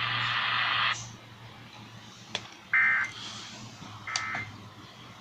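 Emergency Alert System end-of-message data bursts over broadcast radio: short warbling digital squawks, two of them about 1.4 s apart, that mark the close of the test. They follow about a second of radio hiss that cuts off suddenly, and there are a few sharp clicks.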